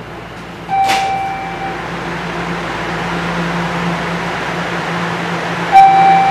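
Steady hum and hiss of a subway car standing in a station, with a click and a single held electronic tone about a second in. Near the end comes the first tone of the falling door-closing chime.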